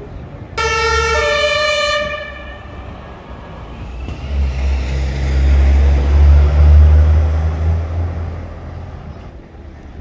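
A vehicle's horn sounds loudly for about a second and a half, a lower note stepping up to a higher one, then cuts off. A few seconds later a heavy vehicle's engine rumbles past, loudest around six to seven seconds in, before fading.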